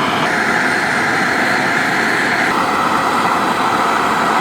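Gas burner running steadily under a pot of water, heating it to test an outboard thermostat. The thermostat is not sealing and stays wide open.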